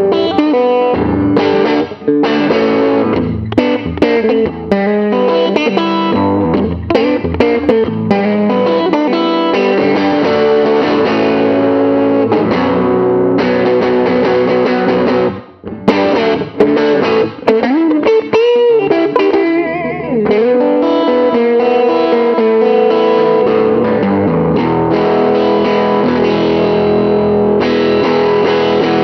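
Custom Gibson ES-330-style hollow-body electric guitar played solo through an overdriven amp, in a gritty hill-country blues riff. It breaks off briefly about halfway, and a bent note follows soon after.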